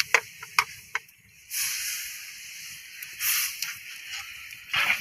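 A coconut-shell ladle knocks several times against an enamel plate and wok rim as ground fish paste is scraped into the pot, then stirs the laksa broth, with swells of hiss from the wok over the wood fire.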